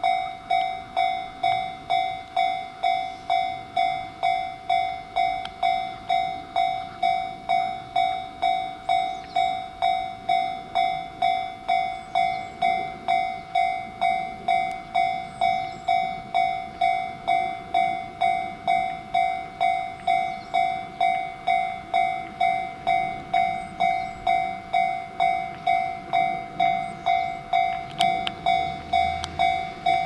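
Railway level crossing warning bell ringing a steady 'kan-kan' of about one and a half strikes a second, each strike dying away before the next. It signals that the crossing is closing for an approaching train.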